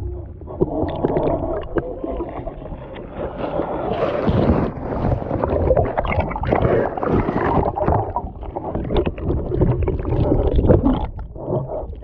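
Muffled sloshing and gurgling of river water around a camera held underwater, with irregular knocks from the camera being moved.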